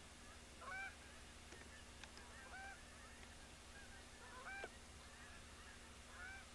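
Geese in flight honking faintly, single calls every second or two, as a small flock comes in to land.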